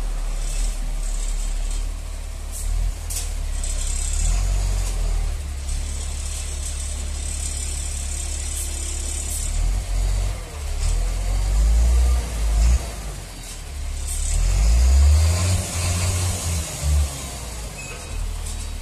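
FAW J6P-350 dump truck's diesel engine running close by, revved up and down in a few swells around the middle and again near the end.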